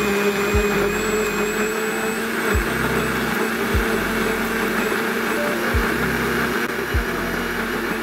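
Small personal blender's motor running at full speed, pureeing chunks of aloe vera gel into a froth: a loud, steady whirring with a constant whine.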